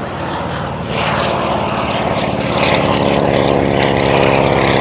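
Boeing Stearman biplane's radial engine and propeller running as it flies a close pass, getting louder about a second in.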